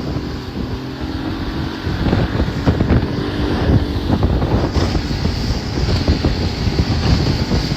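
1985 Yamaha 50 hp two-stroke outboard running steadily with the boat under way, wind buffeting the microphone. A thin high whine comes in a little past the middle.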